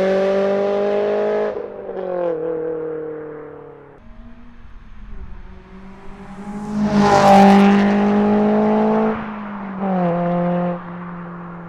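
Honda S2000 four-cylinder engine and exhaust pulling hard at high revs. Its pitch steps down at shifts near 1.5 s and 2.5 s, then it fades and comes back loud about 7 s in, with more downward steps near 9 and 10.5 s.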